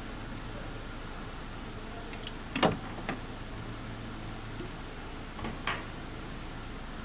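Sharp handling clicks and knocks as a rubber upper radiator hose and its clamp are worked back into place with pliers: a quick cluster of three, then two more a few seconds later, over a steady low hum.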